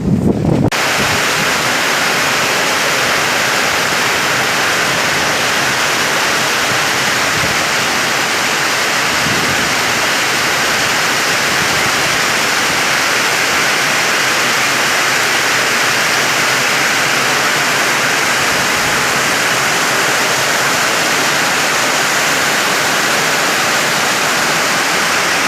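Heavy rain pouring down in a steady, even hiss that starts abruptly about a second in.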